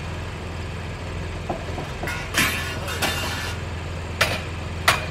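An engine idling steadily as a low hum. Two short rasping scrapes come midway, and two sharp hammer blows come near the end.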